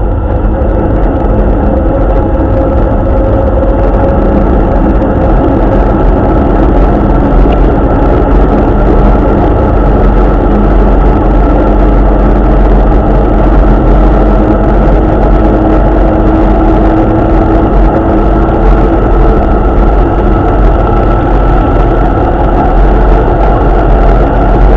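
Steady engine and road noise heard on board a WW2-era military vehicle driving at an even speed on a wet road.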